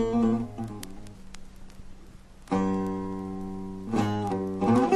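Buzuq, a long-necked Levantine lute, played solo in a taqsim improvisation. A run of quick plucked notes fades away, then a single strong note about halfway through rings on, followed by short flurries of notes near the end.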